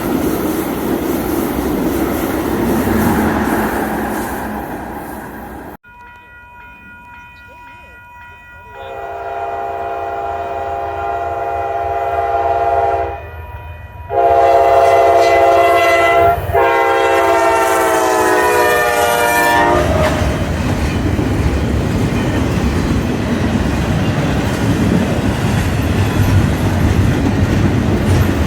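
Train running along, then a locomotive's air horn sounds a chord of several notes in two long blasts, the second sliding down in pitch as the train passes. After that comes the steady rumble and wheel clatter of the train rolling by.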